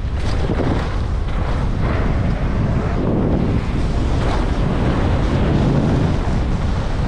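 Steady wind rush buffeting a bike-mounted action camera's microphone during a fast mountain-bike descent, with knobby tyres rolling over dry, loose dirt.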